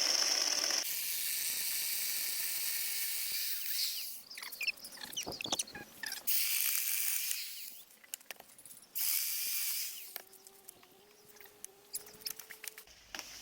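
Electric chainsaw running: a long run of about four seconds, then several shorter bursts, then quieter.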